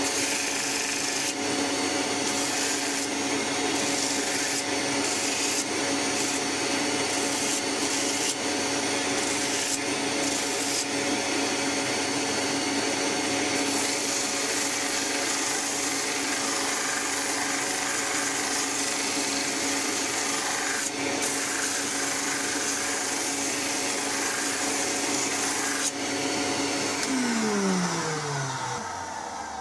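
Bench grinder running while wooden knife-handle slabs are pressed against its wheel to square their edges, the grinding noise coming and going over the steady motor hum. Near the end the grinder's hum falls in pitch as the wheel slows down.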